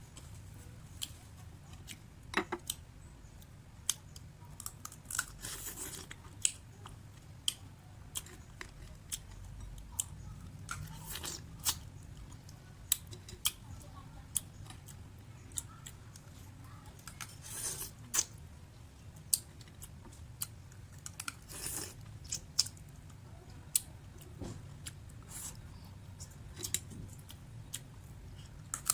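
Close-up eating sounds of sun-dried clams: scattered sharp clicks and short crunchy crackles of shells and dried flesh being bitten and chewed.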